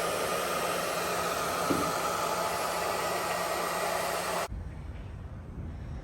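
Handheld hot-air blower running with a steady hiss, warming fresh epoxy filler to speed its cure. It cuts off suddenly about four and a half seconds in, leaving a fainter low rumble.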